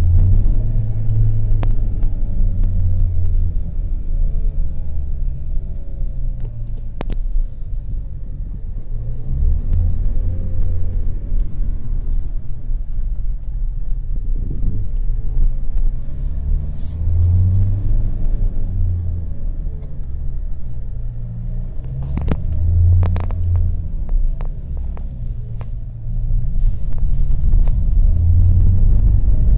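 Opel Vectra C 1.9 CDTI four-cylinder turbodiesel heard from a moving car: a loud low drone that swells and eases several times as engine speed rises and falls. It carries a strange noise that comes under engine braking once the engine is warm and goes away when the clutch is pressed, which the owner suspects comes from the air-conditioning compressor or its pulley, the alternator or the gearbox.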